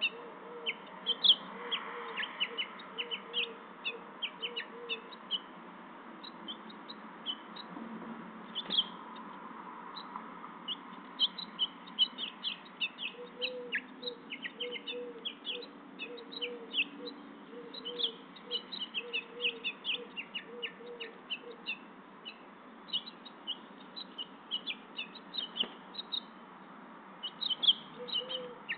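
Small songbirds chirping in many short, high chirps, thickest in the second half. A lower call repeats evenly during the first few seconds and again through the middle.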